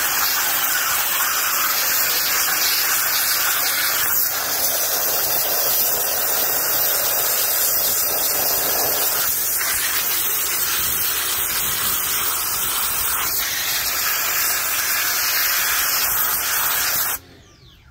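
High-pressure spray hissing steadily while stripping old paint, then cutting off abruptly near the end.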